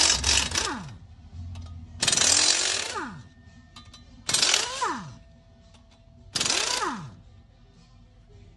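Air impact wrench running out the flexplate-to-crankshaft bolts on a GM LS V8: four loud bursts about two seconds apart, each ending in a falling whine.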